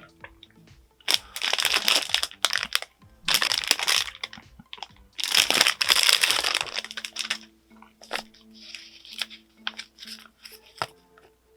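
Plastic packaging being crinkled and crushed by hand in three long bouts, then a few lighter rustles and ticks.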